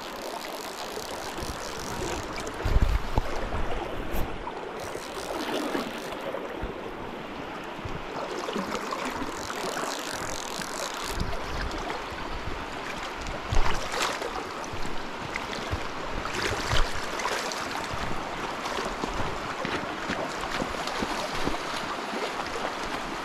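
Fast, shallow creek water rushing steadily over gravel, with wind buffeting the microphone. A few brief knocks stand out, the loudest about halfway through.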